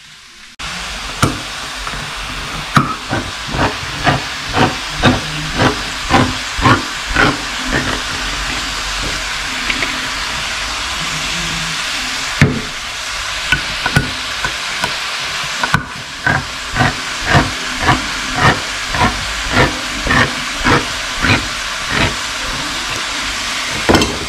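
Beef and pork mince with onions frying in a hot pan: a steady sizzle, with runs of short clicks, about two or three a second, over it.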